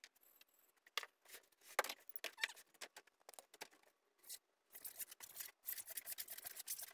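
Clicks and taps of hand tools being handled on a polyiso rigid foam insulation board. From about five seconds in comes a dense run of scratching against the board's facing as the cut to length is laid out.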